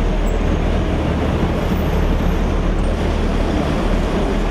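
Steady road traffic and engine noise, heaviest in the low bass, with no distinct events.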